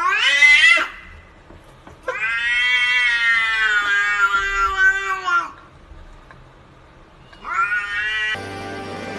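Tabby cat meowing in long, drawn-out calls: one ends with a rising pitch less than a second in, a long call of about three seconds follows, and a shorter call comes near the end.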